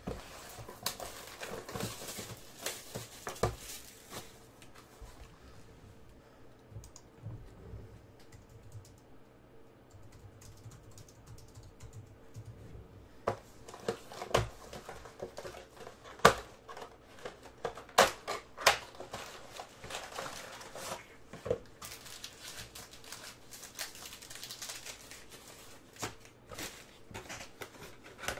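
A cardboard box of trading card packs being handled and opened by hand: scattered sharp clicks and taps. They are sparse and soft at first, then come closer together and louder past the middle.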